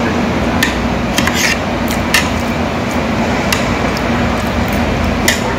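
Chopsticks clicking against a white compartment tray and side-dish bowls while picking up food, about seven sharp clicks spread unevenly, over a steady background hum.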